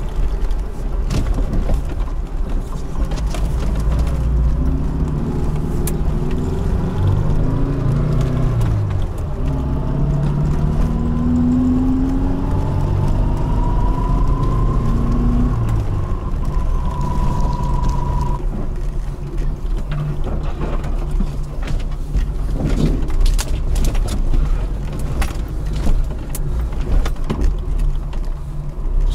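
Lada Niva engine running under load while driving off-road, its pitch rising and falling as it accelerates, with a whine climbing in pitch. In the second half, frequent sharp knocks and rattles come from the vehicle jolting over rough ground.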